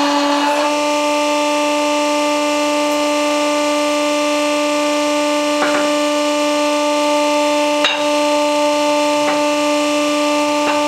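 Electric hydraulic pump of a shop hydraulic press running with a steady whine, a rushing noise over it stopping about half a second in. Four sharp metal clinks as the steel locomotive idler wheels and axle shaft are handled.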